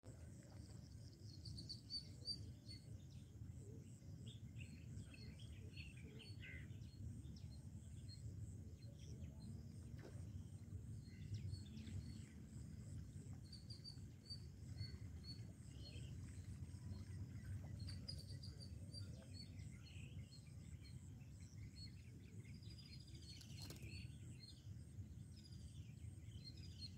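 Faint open-air ambience: a low rumble under scattered bird chirps and a steady run of short, high repeated chirps, with one sharp click near the end.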